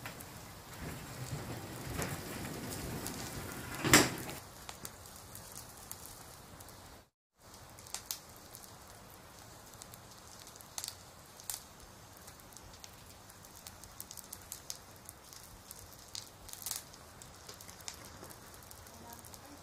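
For the first few seconds, hands work dough on a plastic sheet with a rustling noise and one sharp knock about four seconds in. After a cut, hot oil sizzles and crackles steadily in a wok as pieces fry, with scattered sharp pops and spatula clicks.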